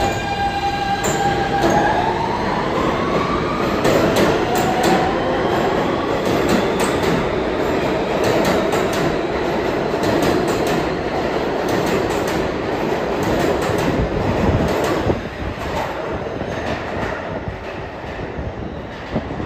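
New York City Subway R160 train accelerating out of the station. The electric propulsion whine holds a steady tone, then rises in pitch about two seconds in as the cars gather speed. It is joined by loud wheel-and-rail noise full of rapid clicks as the cars pass, and the noise drops away after about fifteen seconds as the train heads into the tunnel.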